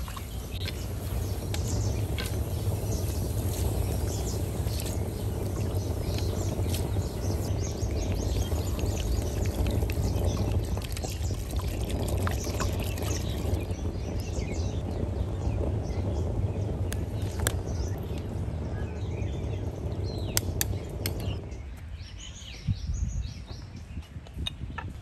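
Water pouring steadily from a jug into a clay pot of chickpeas, stopping abruptly about three and a half seconds before the end. Birds chirp throughout.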